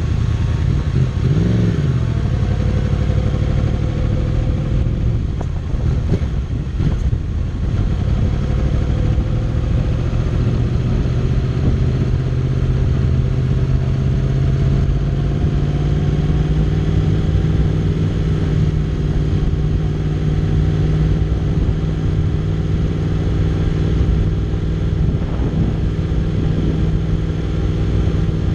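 2014 Yamaha YZF-R1's crossplane inline-four engine running at low, steady revs as the bike rolls along, with a brief rev change about a second and a half in and the pitch creeping slowly upward later on. Heard from a camera mounted on the bike itself.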